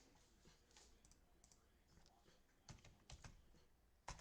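Faint computer keyboard taps and clicks, a few scattered strokes with a small cluster about three seconds in and one more near the end, as a website is brought up on a computer.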